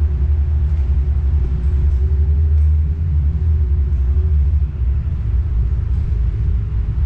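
Power wheelchair driving along: a steady low rumble of its tyres rolling over a concrete floor, with the faint, slightly wavering whine of its electric drive motors above it.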